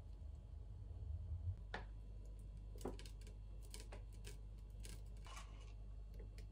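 Faint, scattered light clicks and taps as toppings (banana slices, granola, cacao nibs) are put by hand onto a smoothie bowl, over a steady low hum.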